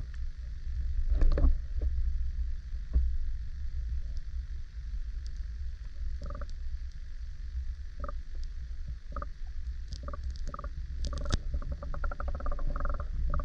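Steady low rumble of wind on the microphone, with scattered clicks and knocks.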